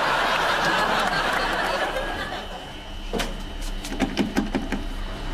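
Studio audience laughing, fading out after about two seconds. Then a quick run of sharp clicks and knocks as a coin-operated launderette machine is handled, over a faint steady hum.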